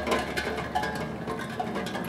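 Raindrops striking a steel tongue drum, ringing out scattered notes at irregular moments over a steady patter of rain.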